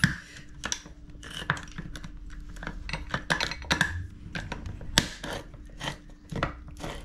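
Irregular clicks, taps and scrapes of a utensil working at a container of cajeta to get it open, with one sharper knock about five seconds in.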